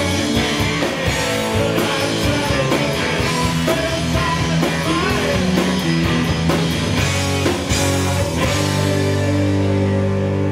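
Live rock band with electric guitars, bass and drum kit playing loud. About eight and a half seconds in, the drums stop and a held chord rings on.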